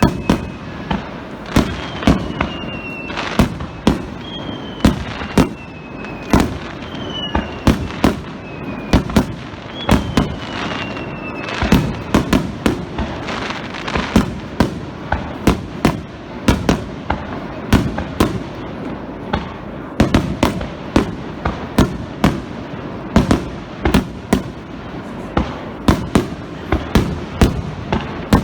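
Starmine fireworks display: aerial shells bursting in rapid succession, several sharp bangs a second over a continuous rumble. Several short whistles that fall slightly in pitch sound in the first half.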